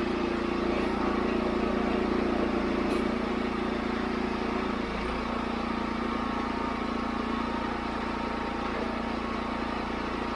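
Wood-Mizer LX25 band sawmill running steadily while milling an alder log, its engine giving a constant hum whose note changes slightly about halfway through.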